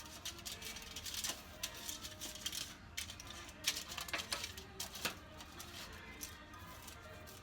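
Cut potato fries being tossed and mixed in a pan: irregular light clicks and taps, over faint background music.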